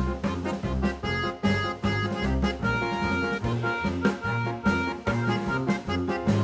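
Background music: an instrumental track with keyboard chords over a steady bass and drum beat.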